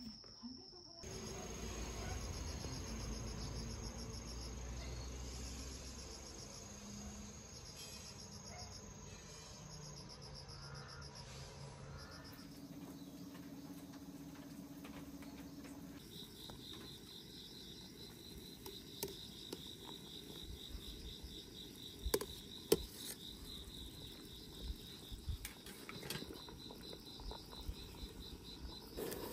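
Crickets chirping in a steady, evenly pulsing high trill, with a few sharp clicks partway through.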